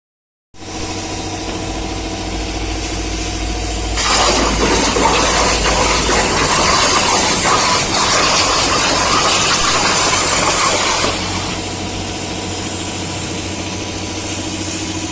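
CNC plasma cutting machine: a steady electrical hum from the power source, with a loud, even hiss of the plasma arc cutting from about 4 seconds in until about 11 seconds, after which only the hum remains.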